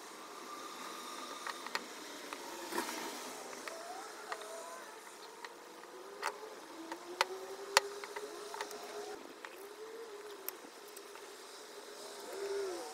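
Scattered sharp clicks and taps of a paintbrush and a small wood board handled on a workbench, the loudest about eight seconds in, over a faint background hum with slowly wavering pitch.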